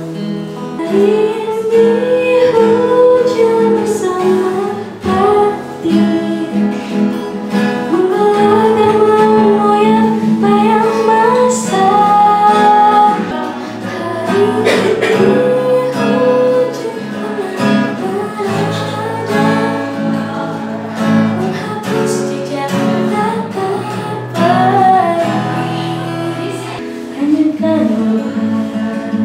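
A woman singing a melody into a microphone, accompanied by an acoustic guitar.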